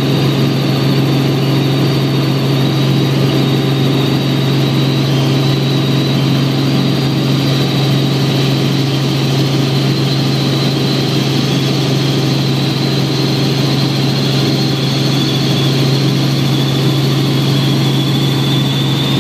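Helicopter cabin noise in cruising flight: a loud, steady low drone from the rotor and engine, with a thin high whine on top.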